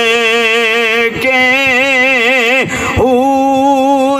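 A man's voice singing a religious verse in three long held notes, each wavering with vibrato, in the drawn-out melodic style of a preacher's sung couplets.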